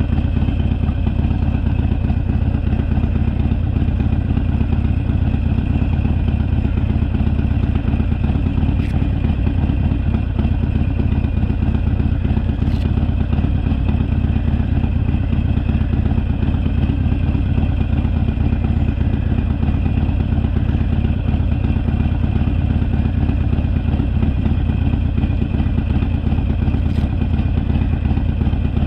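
Harley-Davidson Sportster's air-cooled V-twin engine running steadily under way on the road.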